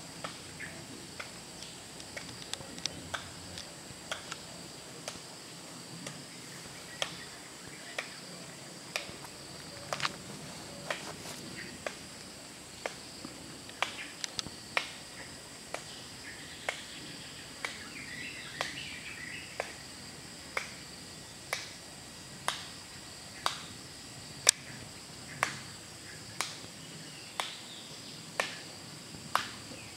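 A series of sharp clicks or knocks. They are irregular at first, then settle to about one a second through the second half, over a steady high-pitched whine.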